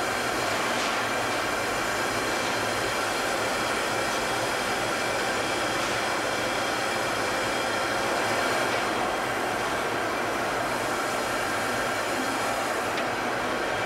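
Glass-flattening kiln running with a steady, even rushing noise of its fire, with no distinct knocks or scrapes standing out.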